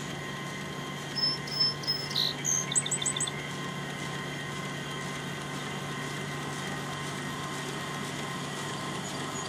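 A songbird sings one phrase about a second in: three clear, level whistled notes, then a lower note and a quick run of four high notes. Under it runs a steady hum.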